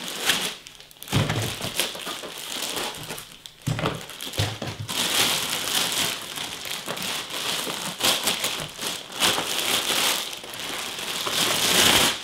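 Clear plastic wrapping crinkling and rustling as it is pulled off a hoverboard, with a few dull thumps about a second in and again near four seconds in.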